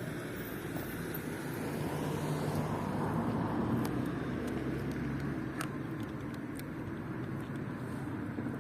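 A steady low rumble that swells about three seconds in and then eases off again, with a couple of faint ticks.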